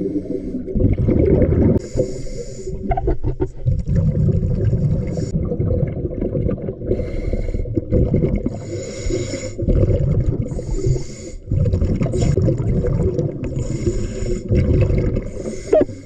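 Scuba diver breathing through a Cressi regulator underwater: short hissing inhalations every two to three seconds, between them the low bubbling rumble of exhaled air escaping.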